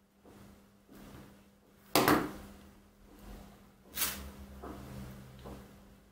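Metal jewellery pliers being handled and set down on a cutting mat while working small steel jump rings: a sharp knock about two seconds in, another about four seconds in, and fainter clicks between.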